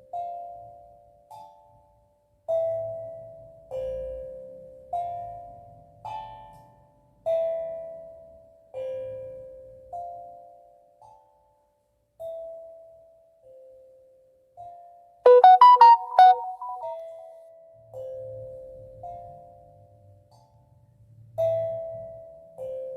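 Steel tongue drum played slowly in an improvised meditative melody: single notes struck about once a second, each ringing out and fading. About fifteen seconds in, a quick run of several louder, brighter notes.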